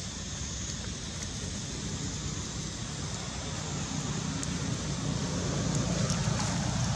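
Steady outdoor background noise: a low rumble and hiss like wind buffeting the microphone, growing slightly louder in the second half, with no monkey calls standing out.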